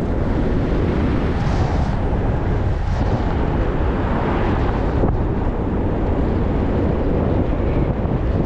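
Wind buffeting the microphone on a moving ride, a steady loud rumble with road noise underneath.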